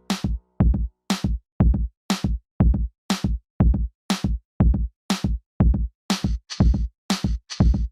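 Background music: a steady electronic drum-machine beat, about two heavy kick-and-snare hits a second with lighter hits between.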